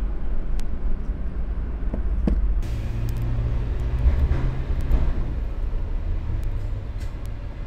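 A steady low rumble with a few faint clicks and taps from fitting a SIM card into a smartphone's SIM tray.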